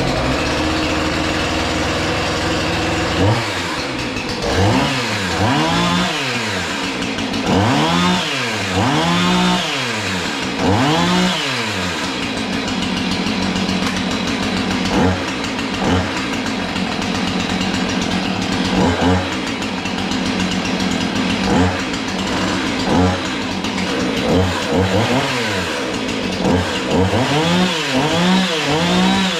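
Husqvarna 450 Rancher 50.2 cc two-stroke chainsaw running just after starting. It idles steadily, and its throttle is blipped in short revs that rise and fall, several in a row early on, a few single ones mid-way, and a quick cluster near the end. The owner calls it smooth.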